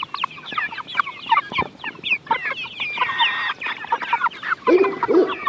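A flock of young white meat chickens clucking in a rapid, overlapping jumble of short calls, with a louder burst of calling about three seconds in and a lower call near the end.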